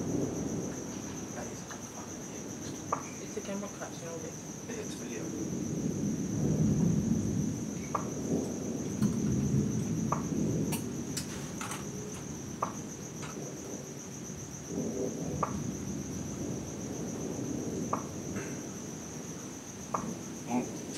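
Distant thunder rumbling low, swelling about six seconds in and fading again after about eleven, over a steady high-pitched chirring of night insects. Short sharp ticks come through here and there.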